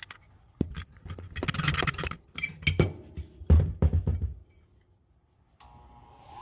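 Irregular knocks, taps and scraping of tools and metal being handled during setup for wire-wheeling an old vise. After a short pause, a faint steady hum from a small motor starts near the end.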